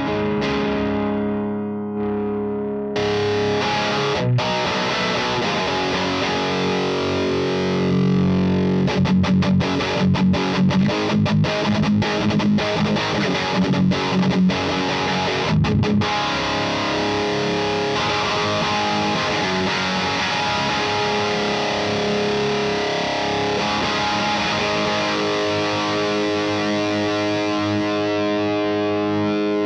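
Overdriven electric guitar: a Gibson Les Paul with P90 pickups played through an Acorn Amplifiers AFKK Klon-clone overdrive pedal into an 18-watt Neutron valve amp. Held ringing chords open the passage. A choppier strummed stretch with short stops follows, and long sustained chords close it.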